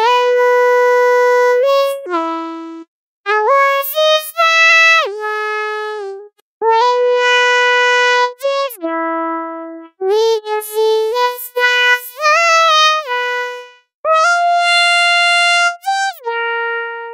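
Commodore 64 SID chip chiptune: a single synthesized lead voice playing a melody in short phrases, its notes sliding from one pitch to the next. The phrases are broken by brief silences every few seconds.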